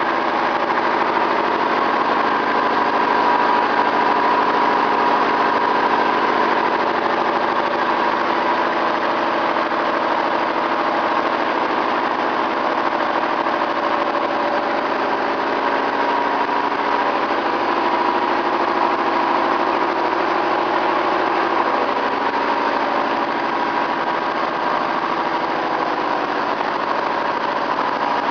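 Universal milling machine running steadily, a constant mechanical hum with a steady whine.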